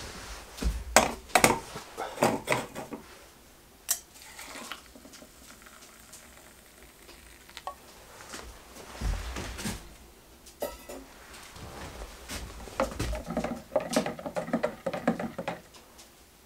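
A metal spoon clinking and scraping inside a small cup as a drink is mixed: a run of taps in the first few seconds, liquid poured in around the middle, then quick stirring clinks near the end.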